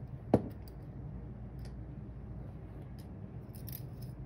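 Light clicks and taps from small brass lock pins and cylinder parts being handled over a wooden pin tray, with one sharper tap about a third of a second in.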